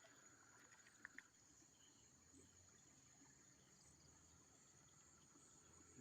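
Near silence: a faint, steady, high-pitched drone of night insects, with two faint clicks about a second in.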